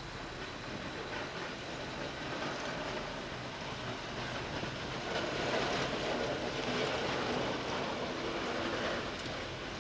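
Vintage tram and its trailer car rolling past on a curve, the wheels rumbling and rattling on the rails, getting louder from about halfway through. City bus and street traffic in the background toward the end.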